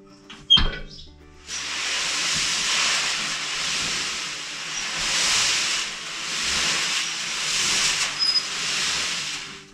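Cover-crop seed mix sliding and tumbling inside a hand-cranked barrel drum mixer, a rushing hiss that swells and fades every couple of seconds as the drum turns. A single knock comes about half a second in, just before the tumbling starts.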